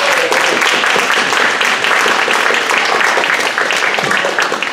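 Spectators clapping in applause as a point is awarded, dying away near the end.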